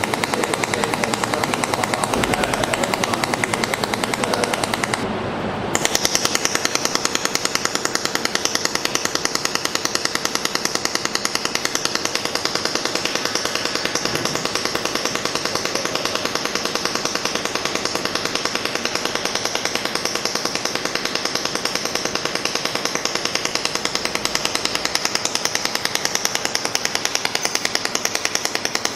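Automatic welding machine welding stainless steel plate: a steady, rapid crackling buzz. The sound dips briefly about five seconds in, then carries on with a higher hiss over the crackle.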